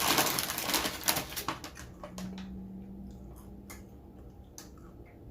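Close-up crunching of tortilla chips being chewed, dense for the first second and a half, then thinning to a few scattered mouth clicks. A short low hum comes about two seconds in.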